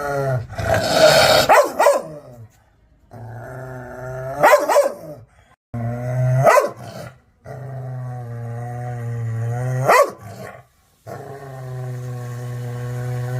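An aggressive dog growling in long, low, steady rumbles, broken by a few sharp, snapping barks about every two to three seconds.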